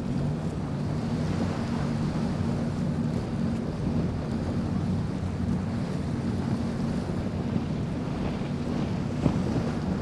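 A powerboat's engines droning steadily at speed, mixed with wind buffeting the microphone and the rush of wake and surf.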